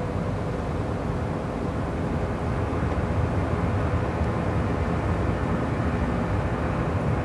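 Heavy trucks driving over sandy desert ground: a steady, low engine rumble that grows a little louder about three seconds in as they come closer.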